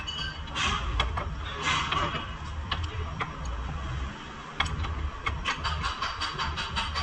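Ratchet wrench clicking in quick runs of metallic ticks, faster and more regular in the second half, as a bolt under the car is turned, over a steady low rumble.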